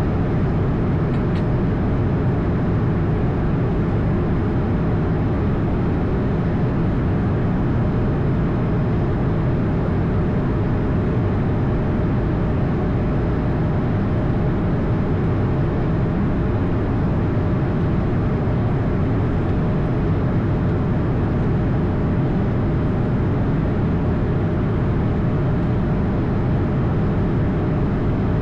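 Steady ambient noise in the cockpit of an Airbus A220: a deep, even rumble of engines and airflow with a faint steady tone above it.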